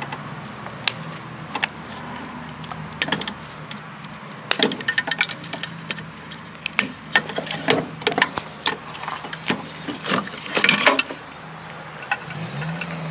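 Irregular clicks and clatter of hand tools and metal parts as wire cutters snip wires and the steel chassis of a battery backup unit is pulled apart, over a steady low hum that wavers near the end.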